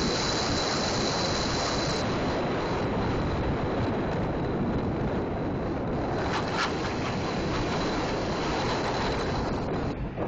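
Loud, steady engine, road and wind noise inside the open-windowed cabin of a 1972 Chevrolet school bus running flat out in a race, with a brief sharper noise about six seconds in.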